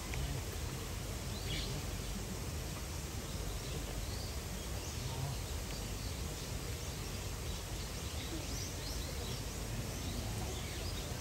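Steady outdoor background noise with a few faint, brief bird chirps now and then.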